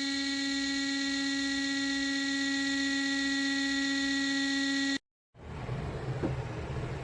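A steady, high-pitched electric buzz, like a small motor running, that cuts off suddenly about five seconds in; after a moment of silence a lower, rougher rumble begins.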